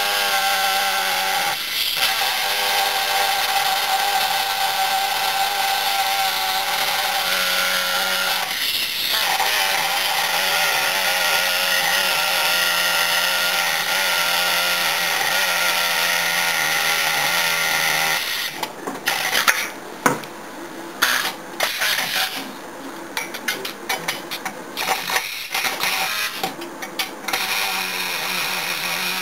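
Inline pneumatic wrench running on a bolt that it can't get moving: it runs steadily for about eighteen seconds, then in short bursts of trigger pulls with gaps between.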